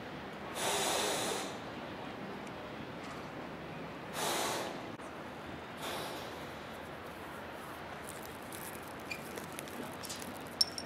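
Steady rushing noise of wind and choppy river water, with two short, louder rushes about a second in and about four seconds in, and a few small clicks near the end.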